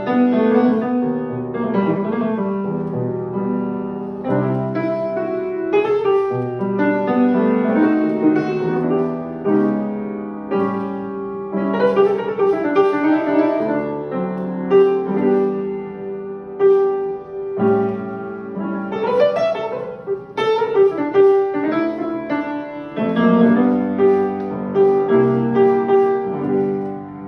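Upright piano being played, several notes sounding together as chords under a moving melody.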